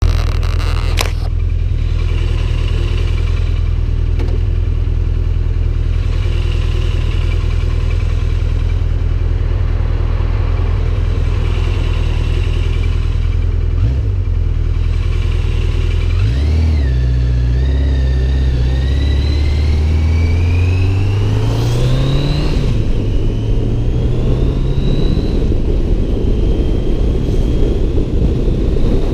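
Touring motorcycle engine idling steadily, then pulling away about halfway through, its pitch climbing as it accelerates, dropping once at a gear change and climbing again. Wind noise on the microphone builds as speed picks up near the end.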